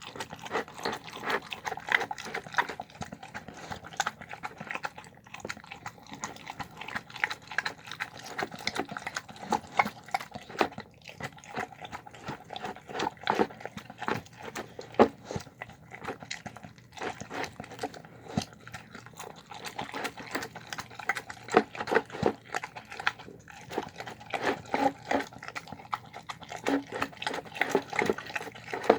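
A dog eating, with continual chewing and smacking: a dense, irregular run of short wet clicks.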